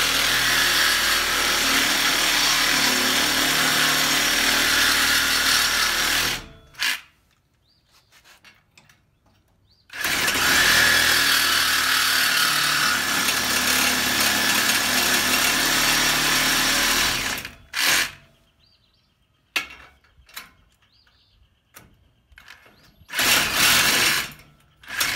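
DeWalt cordless reciprocating saw cutting through a galvanized steel trailer tongue in two long runs. The first stops about six seconds in. The second runs from about ten to seventeen seconds, and is followed by a few short blips of the trigger and a brief run near the end.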